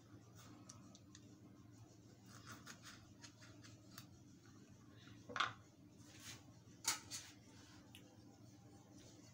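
Kitchen knife slicing through a lemon on a wooden cutting board: faint scratchy cutting strokes, then a few sharper knocks against the board.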